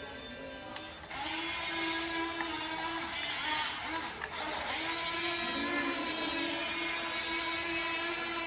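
Electric motors of a Huina RC excavator running with a steady whine that starts about a second in, breaking off briefly a couple of times and dipping in pitch for a moment past the middle.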